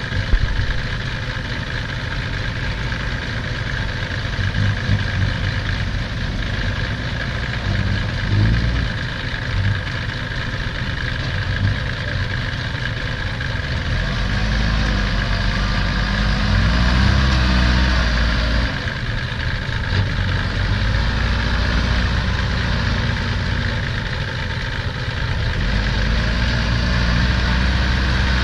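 Diesel engines of a stuck six-wheel dump truck and a Kubota farm tractor running at idle, with a short clank just after the start. About halfway through, an engine speeds up and slows down several times as the tractor moves in behind the truck, and it grows louder again near the end.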